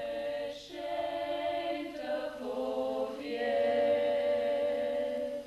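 A choir chanting unaccompanied in slow, sustained notes that move in steps from one held pitch to the next; the singing breaks off suddenly at the end.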